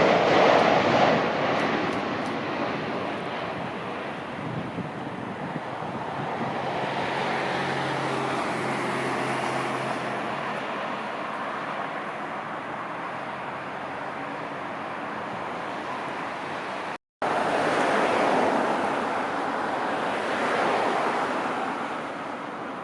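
Heavy jet airliner landing: its engine roar is loudest at the start and then dies away into a steady rushing noise. The sound cuts out briefly about two-thirds of the way through, then a similar jet roar swells and fades again.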